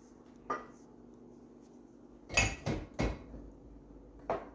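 Five short, sharp coughs: one about half a second in, a quick run of three in the middle, and a last one near the end.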